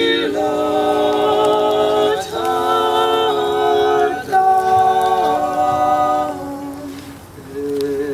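Vocal quartet of two women and two men singing a cappella in slow, held chords that change every one to two seconds. The sound fades about seven seconds in, then a new chord begins.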